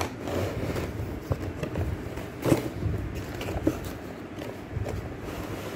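Cardboard headphone box being opened and its inner packaging slid out by hand: irregular rustling and scraping with scattered sharp clicks, the loudest about two and a half seconds in.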